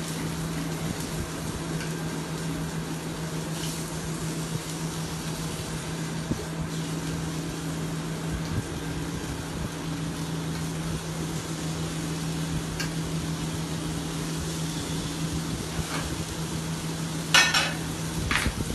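Boneless chicken breasts sizzling steadily as they sear in a hot frying pan, with two sharp clinks of metal near the end.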